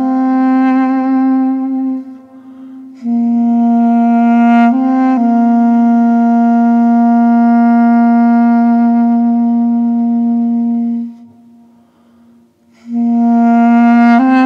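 Solo woodwind instrument playing a slow melody of long, held notes, with short breaks about 2 s in and again about 11 to 13 s in.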